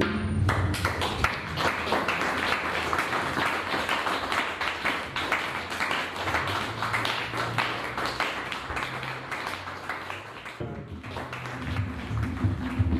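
Small audience applauding: dense hand clapping that stops abruptly about three seconds before the end.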